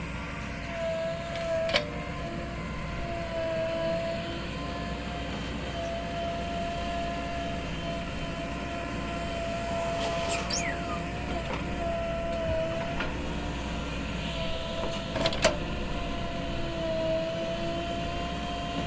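JCB 3DX backhoe loader's diesel engine running steadily, with a held whining tone and a couple of sharp knocks.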